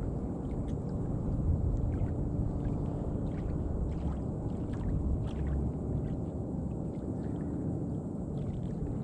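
Low, steady rumble of wind on the microphone outdoors, with faint scattered ticks over it.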